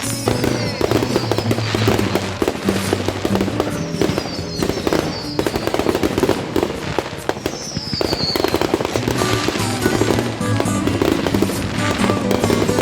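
Fireworks crackling and popping in rapid succession over background music, with three high whistles falling in pitch.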